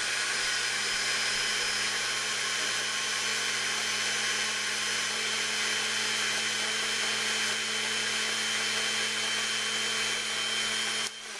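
Hamilton Beach countertop blender running steadily on its grate setting, blending banana into kale and coconut milk. The motor cuts off near the end.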